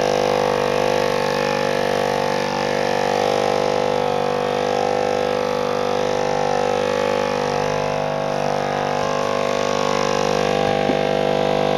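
Electric palm massager's motor running with a steady buzzing hum as its head is worked over a cat's fur.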